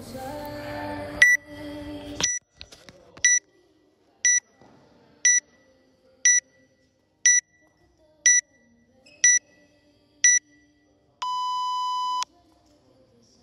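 Workout interval timer counting down: ten short, high beeps one second apart, then one long, lower beep that marks the start of the workout.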